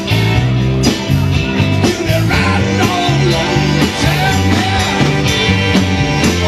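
Rock band music: a steady, repeating bass line under drums, with a wavering lead line coming in about two and a half seconds in.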